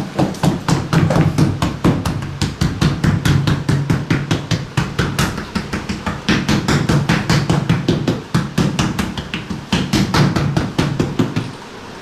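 A hand patting and slapping pastry dough flat on a cloth-covered wooden table: rapid repeated thuds, several a second, that stop shortly before the end.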